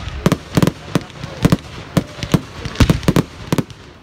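Aerial fireworks display: an irregular rapid string of sharp bangs, several a second, over continuous crackling.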